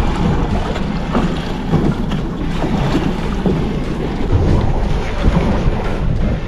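Steady wind buffeting the microphone, with waves and sea noise around a fishing boat offshore.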